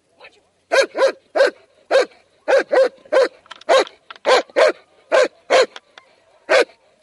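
Large black shepherd-type dog barking repeatedly, about two sharp barks a second, starting a moment in. The dog is lunging on its leash at the helper in protection training.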